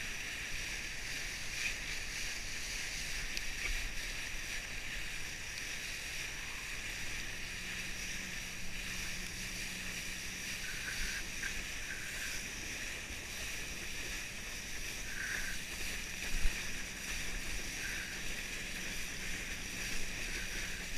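Steady rush and hiss of water under a knee board towed at speed behind a motorboat, at an even level throughout. A low steady hum joins about a third of the way in.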